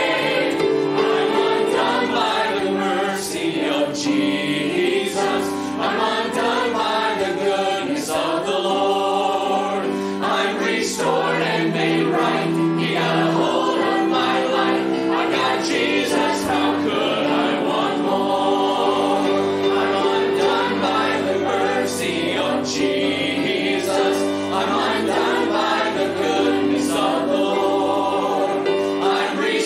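Mixed choir of men's and women's voices singing a gospel song together with lead singers.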